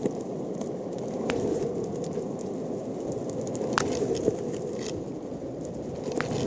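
Longboard wheels rolling over an asphalt path, a steady rumble, with a few sharp clicks along the way.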